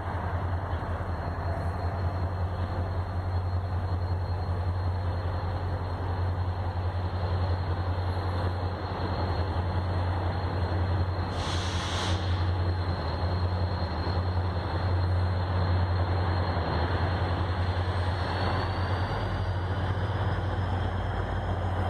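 VIA Rail diesel locomotives rumbling steadily with a deep hum as the train moves slowly along the track. There is a brief hiss about halfway through.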